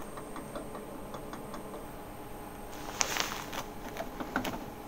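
Epson 005 ink bottle standing upside down in the Epson M2170's ink-tank filling port, emptying into the tank: faint, irregular small ticks and clicks, with a sharper click about three seconds in.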